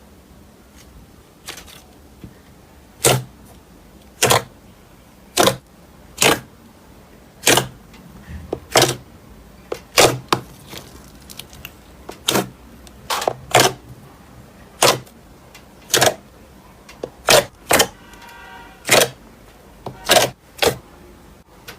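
Slime being pressed and played with by hand, making sharp popping clicks at an irregular pace of roughly one a second. A brief squeaky tone comes near the end.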